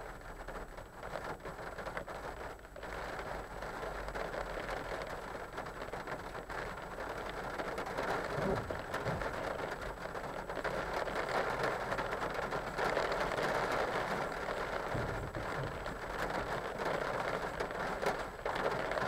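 Heavy rain falling on a car's roof and windscreen, heard from inside the car as a dense patter that gets louder over the first half and stays heavy.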